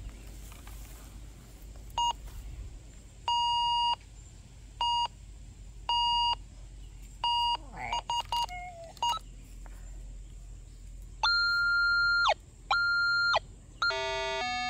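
Minelab Go-Find 44 metal detector sounding its target tones as the coil sweeps: a string of short beeps at one pitch, then from about eleven seconds in, longer beeps at a higher pitch and a quick run of stepped tones. The higher tones are a hit on a buried target that turns out to be a discarded can, a false alarm.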